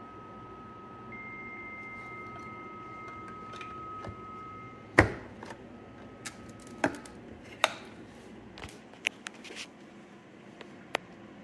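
Two steady modem carrier tones from a telephone handset's earpiece: a lower tone, joined about a second in by a higher one, the 300 bps Bell 103 modem handshake. About five seconds in comes a loud knock as the handset is seated in a wooden acoustic coupler, and the tones fade. Several sharper clicks and knocks follow as the wooden box is handled and shut.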